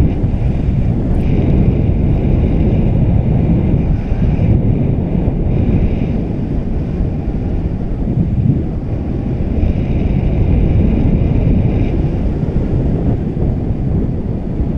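Airflow buffeting a GoPro's microphone in paraglider flight: loud, steady low rumbling wind noise.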